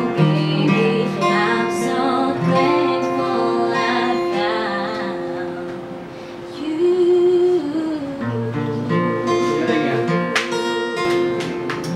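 A singer performing a love-song serenade to acoustic guitar.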